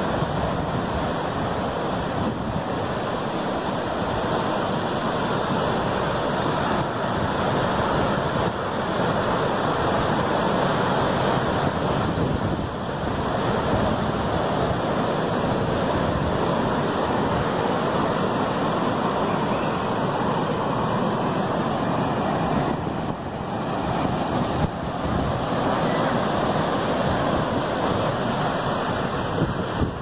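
Atlantic surf breaking and washing up the beach in a steady rush.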